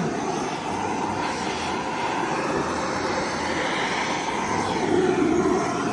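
Gas torch burning with a steady roar as it heats heavy code 8 sheet lead to soften it for dressing.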